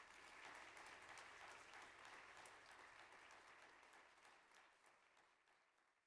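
Congregation applauding after a handbell piece: many hands clapping, faint and even, dying away near the end.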